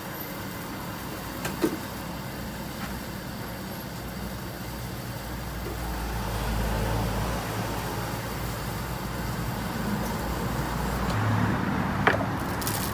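Steady road-traffic noise with a low rumble that swells about halfway through as a vehicle passes, then fades. A sharp knock comes about a second and a half in and another near the end.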